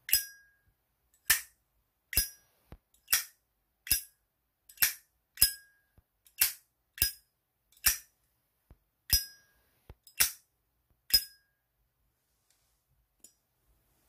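Zippo 1941 replica lighter's hinged metal lid flicked open and snapped shut over and over: more than a dozen sharp metallic clicks about a second apart, several with a short bright ring. They stop about three seconds before the end.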